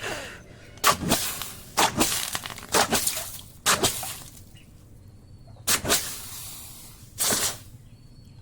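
Short, sharp noisy strokes of metalwork on the steel boti blade, about one a second for four seconds, then two more spaced further apart.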